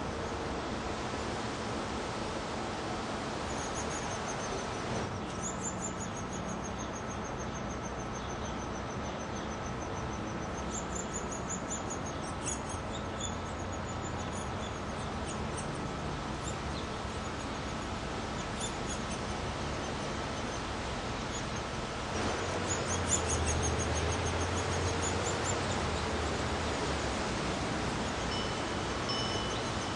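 Downy woodpecker nestlings giving thin, high-pitched squeaky begging calls in long rapid series, over a steady background hiss. A low rumble joins about two-thirds of the way through.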